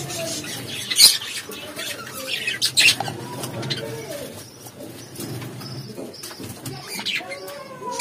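Birds cooing and calling in the background, with some wing flapping. Sharp clicks about a second in, near the three-second mark and at the end, from handling the plastic bottle and measuring cup.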